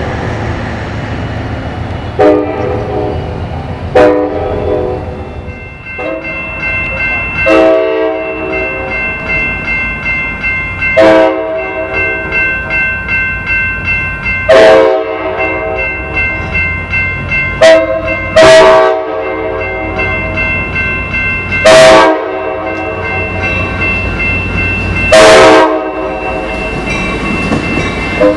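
Passenger train locomotive's horn sounded again and again, about nine blasts, some short and some held for about a second, over a steadily ringing bell, as the train approaches and its bi-level cars roll past.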